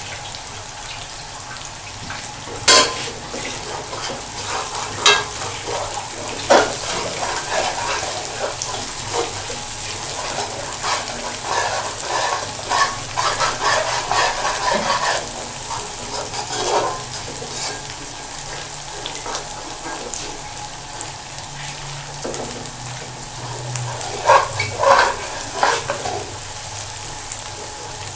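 Sliced onions frying in hot cooking oil in a pot, a steady sizzle as they are stirred, with a few sharp clicks about three, five and six seconds in and again near the end.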